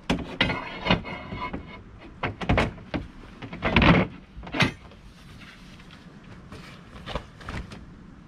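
Camper-trailer bed-end support pole being slid into place under the mattress: metal scraping and rattling, then a few knocks and thuds against the bed base, the loudest about four seconds in, with a few light clicks later.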